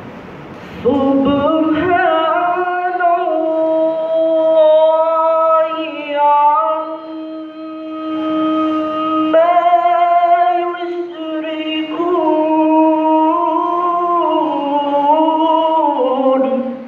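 A cadet's young male voice reciting the Quran in melodic chant into a microphone, holding long notes with wavering ornaments. It comes in two phrases, with a short break about nine seconds in.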